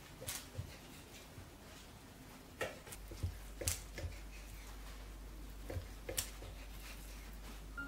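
Kitchen knife cutting through a rolled cinnamon-roll dough log, the blade tapping down onto a wooden board with each slice: a few sharp taps at irregular intervals with softer knocks between.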